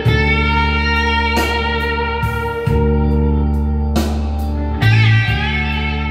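Recorded guitar music played back loud through a hi-fi system: a Rotel 1590 amplifier driving a pair of floor-standing speakers, heard in the room. Plucked guitar notes ring out every second or so over a deep, steady bass.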